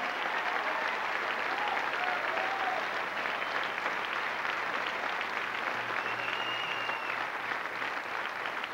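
Large theatre audience applauding steadily, with a few voices calling out over the clapping.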